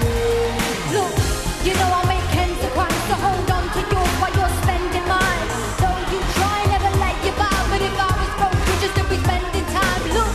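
A female singer performing a pop song live into a handheld microphone over a backing track with a steady, heavy bass-and-drum beat. About a second in, a low falling sweep runs under the music.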